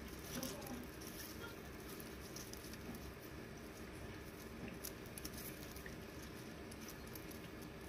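Faint rustling and light scattered ticks of spider plant leaves being parted and handled in the fingers.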